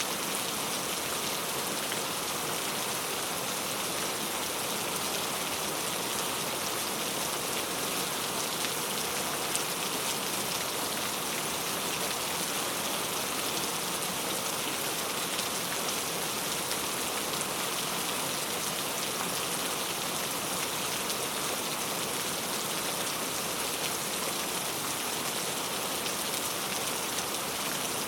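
Steady heavy rain falling, a dense even hiss of drops on surfaces with no breaks or thunder.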